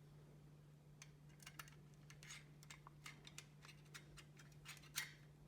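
Faint irregular clicks and light scraping of a magnetic screwdriver driving small screws back in, with a sharper click near the end, over a steady low electrical hum.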